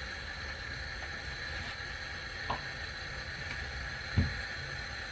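Steady low rumble of a lit gas stove burner under a cooking pot. Two short knocks of a utensil against the pot, a light one about halfway and a louder one near the end.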